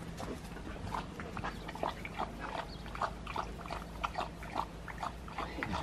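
Dogs making short, repeated calls, two or three a second at irregular spacing.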